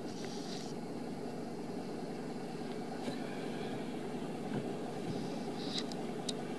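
Steady low background rumble, with a few faint, short, high chirps and clicks: about half a second in, around three seconds in, and twice near the end.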